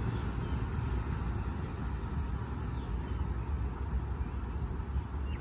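Wind buffeting the microphone: a steady low rumble that keeps rising and falling slightly.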